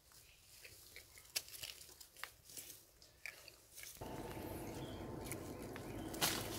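Long-tailed macaques foraging on the ground: scattered small crackles and scrapes, then, from about four seconds in, denser crackling of dry leaves over a steady low background noise, with one sharper crack near the end.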